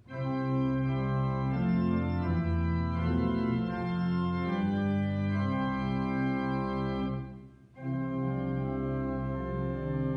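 Organ playing slow, held chords, with a short break between phrases about three-quarters of the way through.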